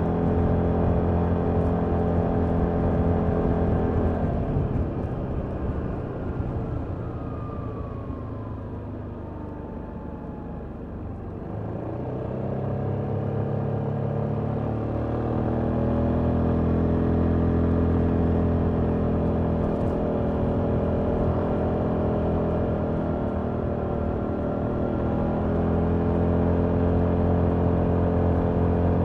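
Yamaha Tricity 300's single-cylinder engine through its stock exhaust, heard from the rider's seat. It runs steadily, eases off and goes quieter for several seconds about four seconds in, then rises in pitch as the scooter accelerates and settles into a steady cruise.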